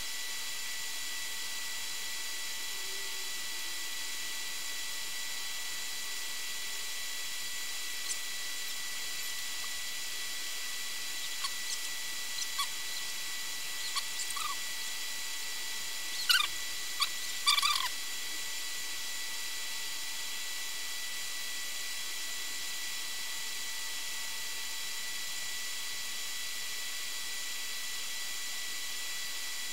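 Steady hiss with a thin electronic whine. Over it come several short, high chirps from a small animal, scattered at first and then a quick, louder cluster a little past the middle.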